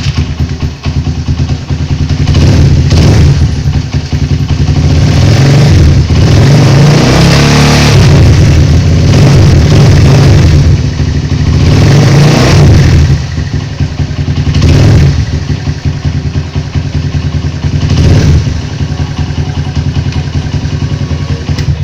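Motorcycle engine running loudly through its exhaust, blipped with the throttle again and again, a short rev every two to three seconds.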